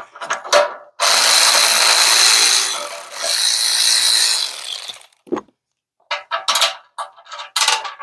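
Cordless power driver with a socket running in two bursts, backing out a 9/16 winch mounting bolt: a run of nearly two seconds starting about a second in, then a shorter one. Near the end come a few short, sharp clicks.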